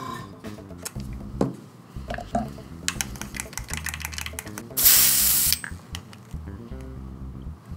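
Airbrush giving one short hiss of air and paint about five seconds in, lasting about half a second. Before it come light clicks and taps of paint being stirred in the airbrush's colour cup.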